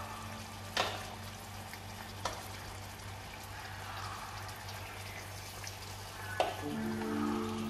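Marinated pork belly frying in oil in a pan, a steady sizzle with three sharp clicks spread through it.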